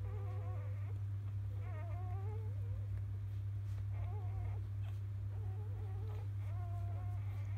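Newborn Labrador Retriever puppies squeaking and whining in short, wavering cries, about five in all, over a steady low hum.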